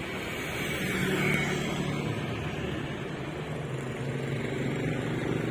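Steady low hum of a running motor vehicle engine, a little louder from about a second in.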